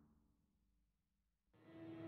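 Near silence, then background music fading in near the end.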